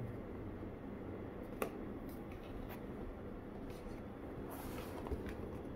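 Faint handling sounds from a cardboard product box being picked up and turned over: a light tap about one and a half seconds in, then a brief rustle and another small tap near the end, over a low steady hum.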